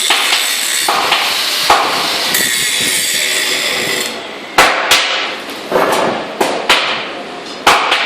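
Hammer blows on metal: about seven sharp, ringing strikes at an uneven pace in the second half, after a few seconds of steady dense noise.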